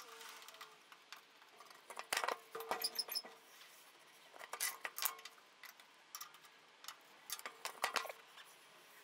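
Faint scattered clicks and scrapes of a wooden throat-plate insert being handled and set into the opening of a table saw's top around a dado stack, in a few short clusters.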